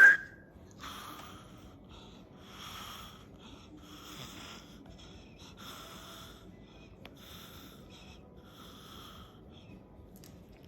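Soft, breathy wheezing puffs, repeating about every second and a half.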